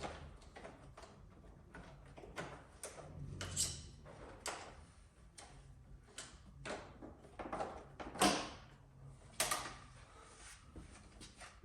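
Irregular clicks, taps and scrapes of hands working a new clutch cable along its route through a motorcycle's frame, with a louder knock about eight seconds in and another a second later.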